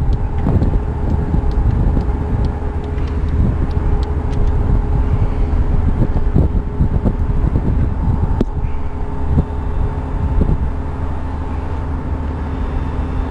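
Wind buffeting the microphone in a continuous low rumble, with a faint steady hum underneath and scattered light clicks and knocks.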